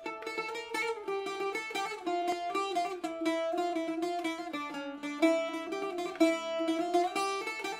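Intro music: a plucked string instrument playing a quick melody of rapidly picked notes.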